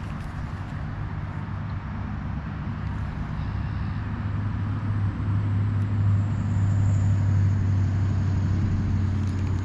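Steady low hum of motor-vehicle traffic, growing louder about halfway through.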